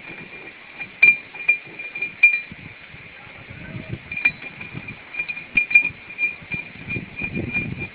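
Metal clinks and clicks, irregularly spaced, as lug nuts are handled and threaded back onto the studs of a wheel spacer, over a steady high-pitched tone.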